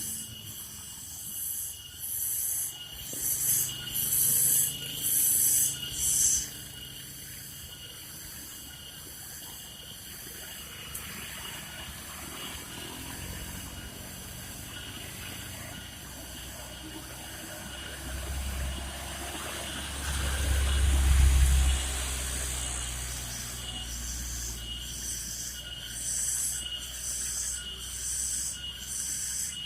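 Low engine rumble of a heavily loaded truck labouring up a steep climb, swelling to its loudest about two-thirds of the way through and then easing off. A high pulsing hiss, about once a second, sounds at the start and again near the end.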